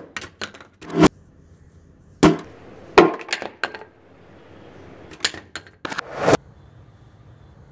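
A sledgehammer dropped repeatedly onto a white plastic Karam safety helmet on a concrete floor: a series of sharp hard knocks, each followed by a brief clatter as the hammer and helmet bounce. A short rising rush comes just before the last, loudest strike. The helmet shell stays intact through the drops.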